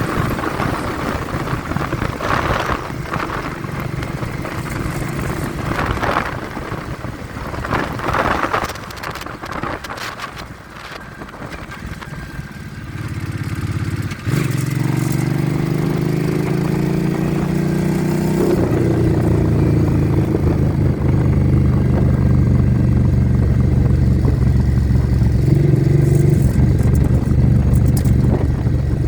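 Wind buffeting the phone microphone during a ride, then the vehicle's engine coming up. The engine pitch climbs as it accelerates, then after a change about two-thirds of the way in settles into a steady, louder note.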